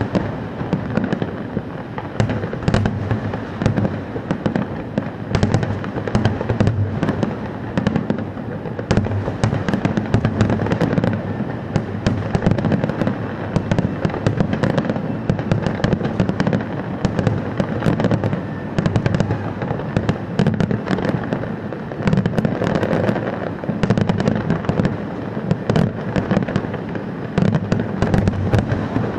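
Fireworks display: a dense, unbroken barrage of bangs and crackling, with many shells going off every second.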